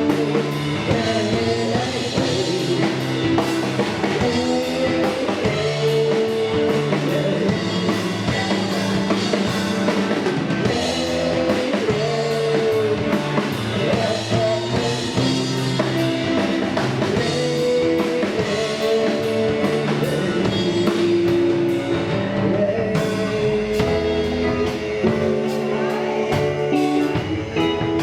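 Rock band playing an instrumental passage of a song, with a drum kit and guitars.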